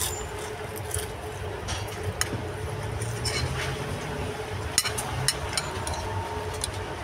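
Eating from a bowl of nasi pecel topped with crisp crackers: scattered sharp crunches and small clicks, a handful over several seconds, over a steady low rumble.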